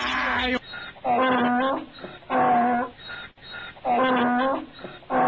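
An inserted sound effect of four short, whining animal-like calls, evenly spaced, each held at a steady pitch.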